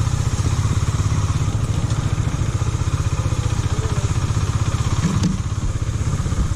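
KTM Duke 250's single-cylinder engine running steadily, with a short knock about five seconds in.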